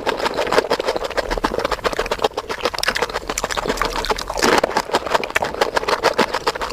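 Close-miked chewing of crunchy food: dense, rapid crackles and crunches.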